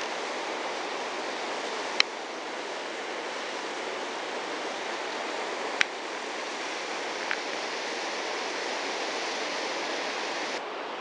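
Steady rushing of a waterfall, with a few short sharp ticks over it.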